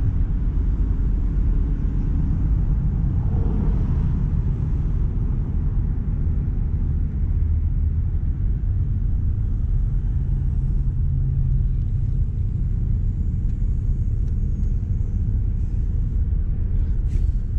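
Steady low rumble throughout, with a brief sharp click near the end.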